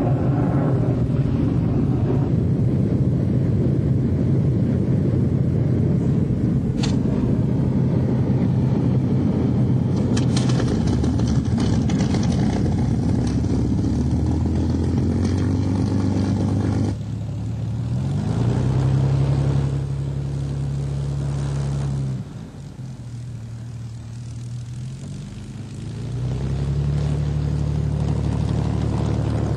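Hawker Hurricane's Rolls-Royce Merlin V12 piston engine running just after start-up, a steady, loud drone. About 17 s in the sound changes abruptly: the engine note rises, falls away about 22 s in, and rises again near the end as the throttle is worked.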